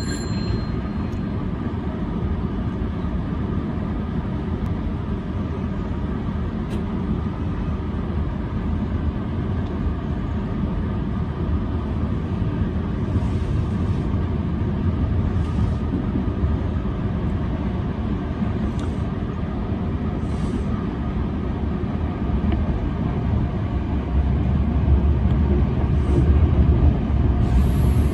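Electric commuter train running on the Semboku Rapid Railway line, heard from inside the driver's cab: a steady rumble of wheels on rail that grows louder in the last few seconds as the train picks up speed.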